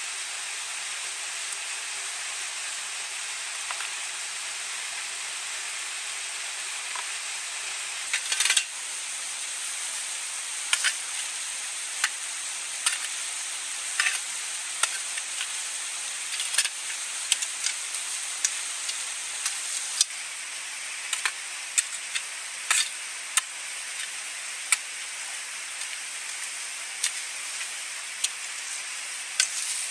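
Steady rush of a small stream, with a small hand hoe chopping into stony soil from about eight seconds in: a loud knock first, then sharp strikes roughly every second.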